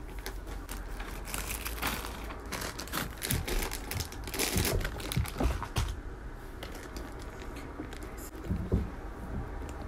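Plastic packets crinkling and rustling as they are handled and opened, busiest in the first six seconds. A thump near the end.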